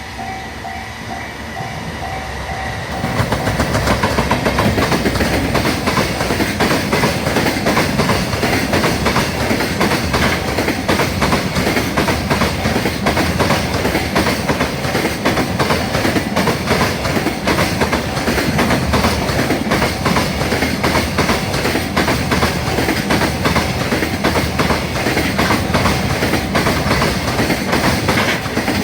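Freight train passing a level crossing: at first a level-crossing warning bell rings with a repeating tone, then about three seconds in the train arrives loudly and a long line of freight wagons clatters by, wheels clicking over the rail joints.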